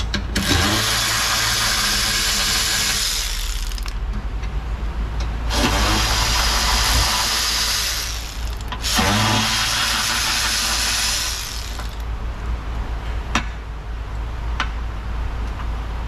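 Cordless electric ratchet spinning out the radiator bracket bolts in three runs of about three seconds each, its motor whirring up at the start of each run. A couple of sharp clicks follow near the end.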